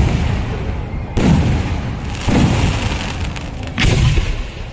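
Traditional Kerala temple fireworks (vedikkettu): loud aerial firework bangs going off about once a second, four big reports, each followed by a low rolling rumble and echo.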